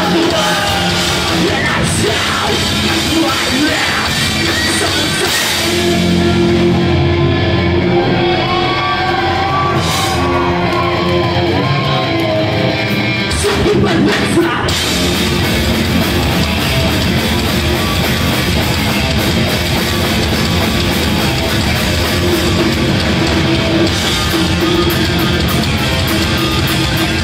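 Live ska-punk band playing loudly in a concert hall: electric guitars, bass and drums with vocals. About six seconds in the drums and cymbals drop away to a thinner section, and the full band comes back in about fourteen seconds in.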